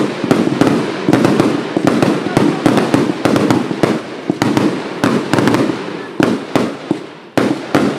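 Triplex finale firework cake firing a rapid barrage of sharp shots over dense crackle. The barrage thins out and gets quieter over the last few seconds as the cake burns out.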